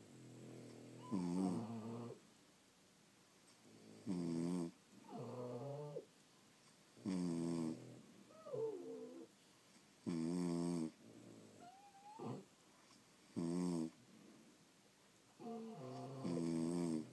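Sleeping French bulldogs snoring: a loud, buzzing snore about every three seconds, six in all, with thin whistling tones that slide up and down between some of them.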